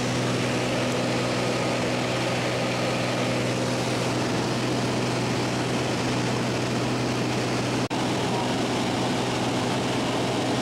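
Light aircraft's piston engine and propeller droning steadily, heard from inside the cabin while the plane climbs. There is a split-second break in the sound near eight seconds in.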